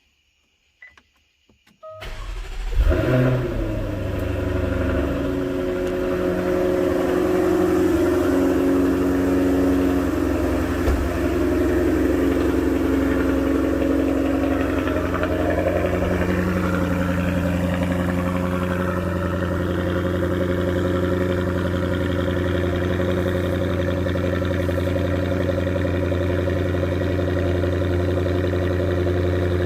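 Jaguar F-Type R's supercharged 5.0-litre V8 cold-starting about two seconds in, flaring loudly as it catches, then settling into a steady high cold idle through the stock exhaust, with the factory cats and downpipes still fitted.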